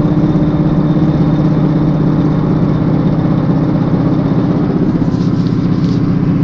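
Volvo S60R making a loud, steady droning noise with a fast pulsing beat, which the owner traces to the car's rear end.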